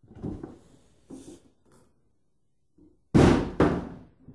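Stiff clear plastic figure packaging being handled: soft rustling at first, then two loud sudden crackles about half a second apart just after three seconds in.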